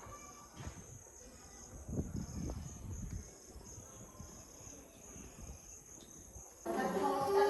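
Insects chirring in a high, steady, pulsing trill, with some low rumbles in the middle. Near the end, people's voices start abruptly.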